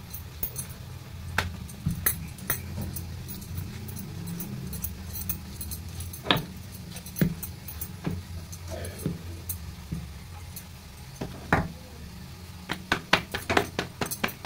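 Wooden rolling pin rolling out roti dough on a plastic mat, with scattered light clicks and a quick run of taps near the end, over a steady low hum.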